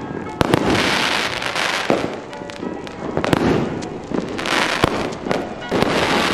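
Fireworks going off: a run of sharp bangs over continuous crackling. The loudest bangs come about half a second in and again near five seconds in.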